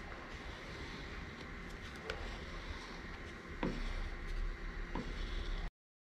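Handling sounds of a wooden stir stick and plastic epoxy mixing cup, with a few soft knocks as they are lifted and set down on the workbench, over a low steady hum. The sound cuts off abruptly about two-thirds of the way through.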